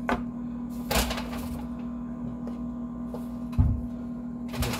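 Paper takeout packaging rustling and crackling in short bursts as food is unpacked, then a dull thump near the end as a container is set down on a wooden cutting board. A steady low hum runs underneath.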